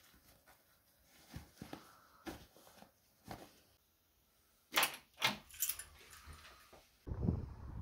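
Faint rustling and taps of hiking-boot laces being tied, then about five seconds in a bunch of keys jangling as they are taken off a wall key hook. A low rushing noise begins near the end.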